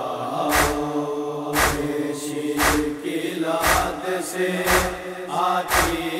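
Noha backing track: a chorus holding a wordless, sustained chant, cut by a sharp matam-style chest-beating slap about once a second.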